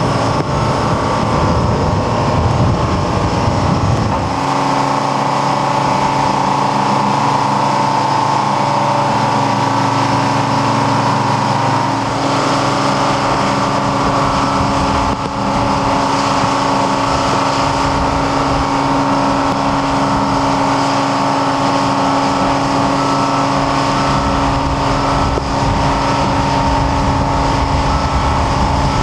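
Travel lift's engine and hydraulic drive running steadily under load, a held whine over a rumble that shifts in pitch twice, once about four seconds in and again about twelve seconds in.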